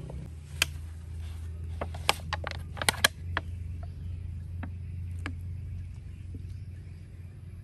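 Hands handling a plastic bottle and potting soil: a cluster of sharp clicks and crackles about two to three seconds in, then a few lighter ones, over a steady low hum.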